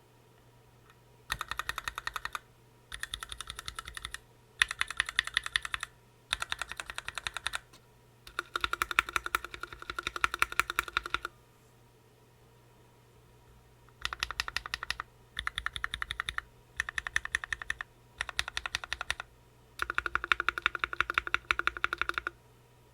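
Typing on a Planck Hi-Pro mechanical keyboard with OA switches and PBT keycaps: quick runs of clacking keystrokes, each one to three seconds long, separated by short pauses, with a longer pause near the middle.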